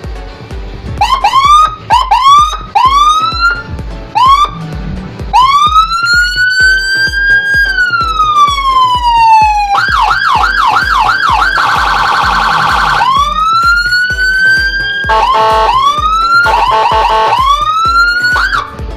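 Whelen-type electronic police escort siren, fitted to a Honda Forza 250 scooter, cycling automatically through its tones. About a second in it starts with short rising whoops, then a long wail that rises and slowly falls, a fast yelp about halfway, a steady warbling tone, and more rising whoops and short chirps near the end. A music beat runs underneath.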